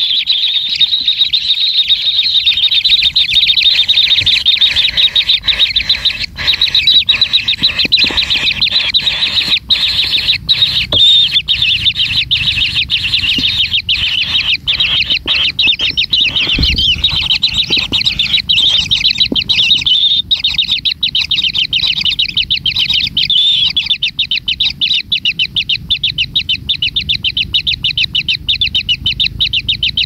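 Kingfisher nestlings begging in their burrow nest: a loud, continuous high-pitched rasping chorus. Past the middle it breaks into a rapid pulsing stutter.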